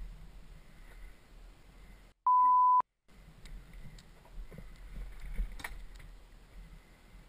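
A single censor bleep about two seconds in: a steady high tone lasting about half a second, with the soundtrack muted just around it. Before and after it there is a low, uneven rumble with a few faint clicks.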